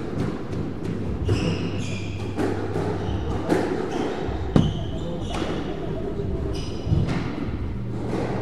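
Squash ball struck by rackets and smacking off the court walls and floor, a string of sharp hits with the loudest about four and a half seconds in, mixed with short squeaks of court shoes on the wooden floor.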